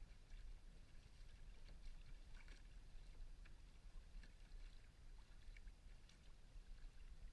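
Faint water sounds of a kayak under way: small splashes and drips scattered through, over a low steady rumble.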